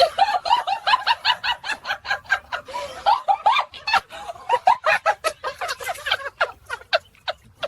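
A rapid run of short, high-pitched chattering calls, about five or six a second, going on without a break.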